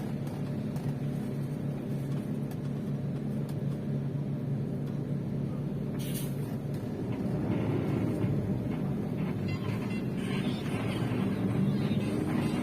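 A vehicle engine humming steadily. About seven seconds in, the steady hum gives way to a broader, rougher rumble.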